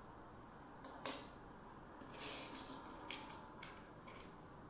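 LEGO bricks clicking as they are handled and fitted together: a sharp click about a second in, a short rustle of pieces around two seconds, then another click and a couple of lighter ticks.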